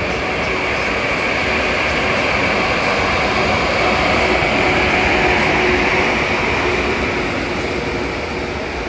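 ZSSK class 350 dual-system electric locomotive and its passenger coaches departing: a loud, steady running noise with a faint steady tone in it, swelling to a peak about five seconds in and easing slightly as the coaches roll past.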